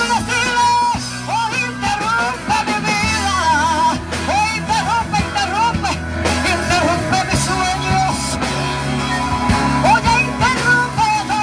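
Live worship band playing, with a lead voice singing a melody over drums, bass and guitars.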